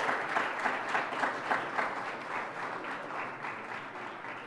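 Audience applauding, with dense clapping that slowly dies away over the last couple of seconds.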